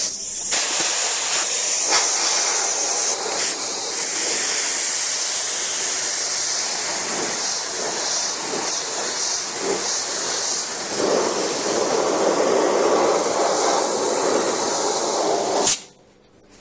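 Pneumatic spray gun for sprayable seam sealer hissing steadily as compressed air atomises the sealer, set to a higher material feed. A coarser, lower rush joins about two-thirds of the way through, and the hiss cuts off abruptly near the end.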